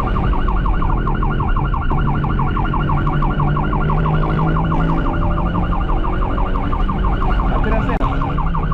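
Police car siren sounding a fast, rapidly repeating warble, heard from inside the pursuing car's cabin. The vehicle's engine hums steadily underneath.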